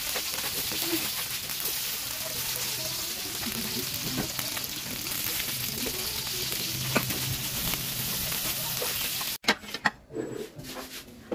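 Small fish fillets sizzling as they fry in an aluminium wok, with occasional clicks of metal tongs turning them. The sizzle cuts off about nine seconds in, followed by a few clinks of bowls and spoons being taken from a dish rack.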